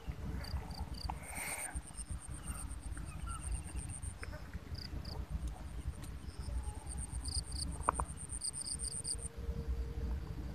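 Insects trilling in the weeds: a high, steady pulsing trill that stops about nine seconds in, with short chirps in twos and threes. A low rumble on the microphone runs underneath.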